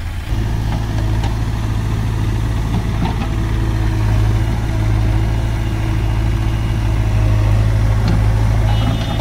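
Heavy diesel engine running steadily with a low hum, stepping up in loudness just after the start.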